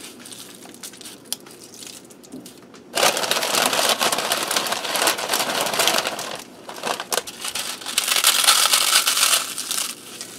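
Nacho cheese Doritos tortilla chips crackling and crunching as they are crumbled by hand. It is faint for about three seconds, then loud in two long stretches with a short break between them.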